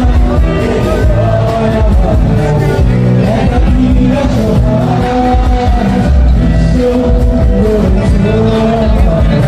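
Music: a song with a held, wavering sung melody over a steady beat and bass.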